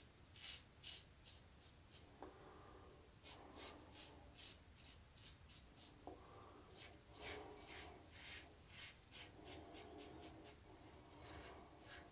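Double-edge safety razor scraping through lathered beard stubble on a pass across the grain: a steady series of short, crisp scratches, several a second, each one a razor stroke cutting whiskers.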